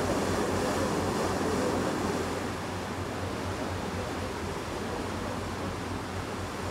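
Steady rushing of wind and water at the bow of a coastal passenger ship under way, with a low steady hum beneath; it eases slightly about two seconds in.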